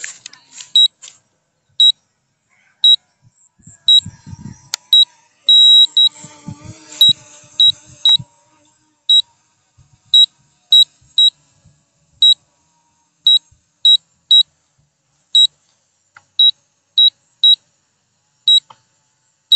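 Low-battery warning beeps from the K80 Pro Max drone's controls: short, high, loud beeps, a little over one a second and unevenly spaced, sounding while the drone flies home on a nearly flat battery. Faint low rustling runs under them around the middle.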